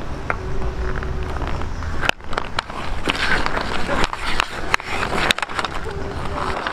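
Ice hockey skates scraping and carving on the ice, with sharp clicks of sticks on the puck, mostly from about two seconds in.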